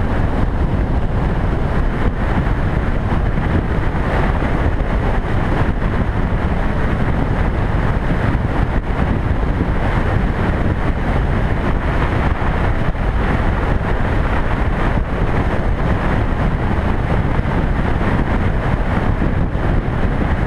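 Steady rush of wind buffeting a motorcycle-mounted camera's microphone at highway speed, with the motorcycle's running and road noise blended underneath.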